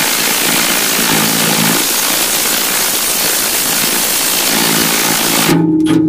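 Milwaukee M18 Fuel cordless impact wrench hammering steadily on a seized 1-1/8-inch toolbox bolt, stopping about five and a half seconds in; the bolt does not break loose.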